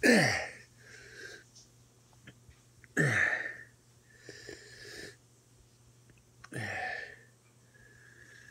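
A man's pained cries after tearing off his own toenail: three loud cries, each sliding down in pitch, with softer hissing breaths between them.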